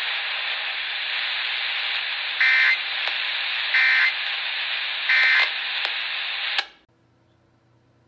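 Baofeng handheld radio hissing with channel static, broken by three short data bursts about a second apart: the EAS end-of-message codes that close the flood warning. Near the end the transmission drops and the hiss cuts off with a click, leaving faint room tone.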